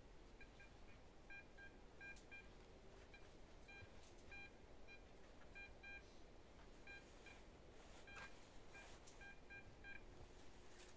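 XP Deus metal detector giving faint, short beeps at two pitches, repeating in quick pairs and runs throughout.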